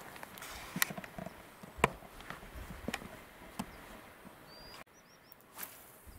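A few sharp, separate clicks and knocks, roughly one every half second to second, over a soft outdoor hush. Near the end come several short, high, rising bird chirps.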